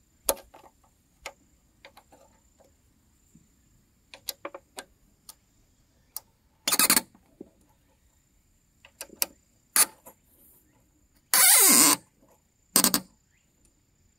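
Hex key clicking and scraping on the steel clamp bolts of a brush cutter's right-angle gear case as they are tightened: scattered sharp metal clicks with a few short, louder scrapes, the loudest and longest about eleven seconds in.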